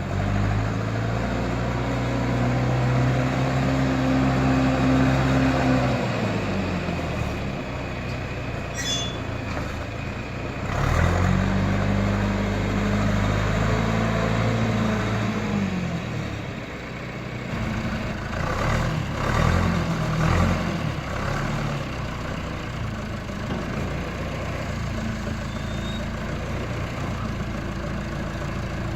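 John Deere 310A backhoe's diesel engine running, revved up and held for several seconds twice, then revved briefly a third time before settling back to idle.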